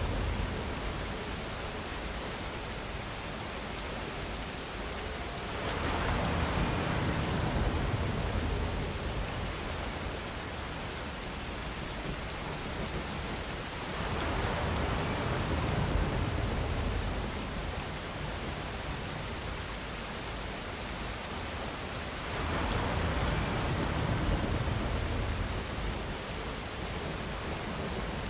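Steady rain with wind that swells louder three times, about eight seconds apart. Each swell carries a low rumble of distant thunder.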